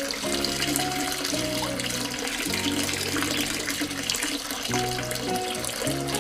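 Background music of held notes changing every half second or so, over a steady hiss of running, splashing water.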